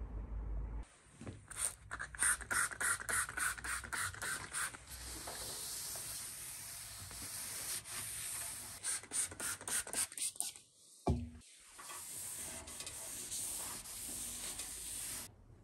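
Paper towel rubbing over the bare steel of a motorcycle fuel tank in quick back-and-forth wiping strokes, a scrubbing hiss. The wiping stops briefly just after ten seconds in, then carries on.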